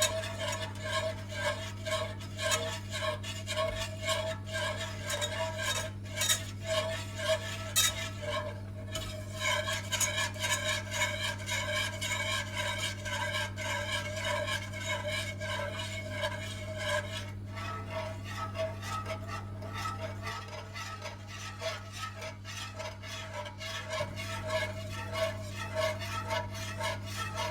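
A wire whisk stirring and scraping quickly in a non-stick pan, in rapid repeated strokes, as a potato starch and water mixture cooks and thickens over low heat. A steady low hum runs underneath.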